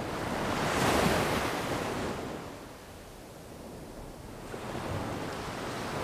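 Surf on a beach: a wave breaks and washes in about a second in, dies away, and the next one begins to build near the end.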